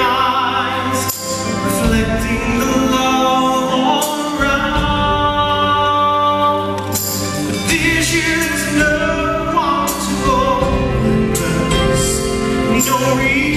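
A male singer singing a Christmas song live over instrumental accompaniment, the voice gliding and swelling with vibrato on held notes.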